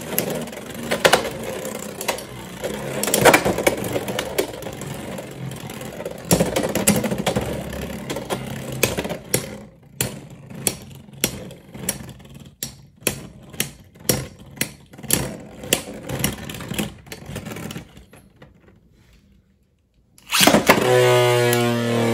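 Beyblade X spinning tops in a plastic stadium: a whir with frequent sharp clacks as the tops collide. The clacks settle into a steady knocking about twice a second as the spin dies, then fade out. Near the end a loud new whir starts, with a falling pitch.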